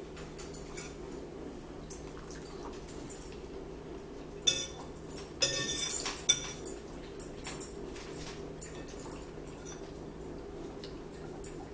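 Forks clinking and scraping on dinner plates during a meal, with a burst of louder clinks about four to six seconds in, over a steady low hum.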